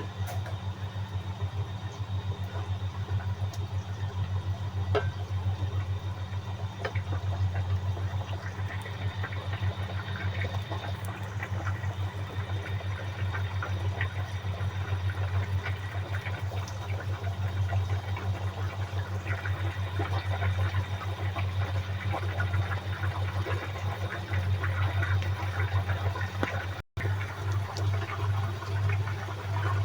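Pot of beef tendons bubbling on the stove under a steady low hum, with a fine crackle of simmering liquid. The sound drops out for an instant near the end.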